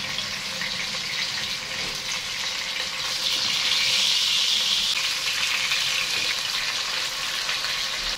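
Slices of homemade spam frying in a little oil in a non-stick pan on medium-high heat, sizzling steadily. The sizzle grows louder for a couple of seconds midway as the slices are turned over.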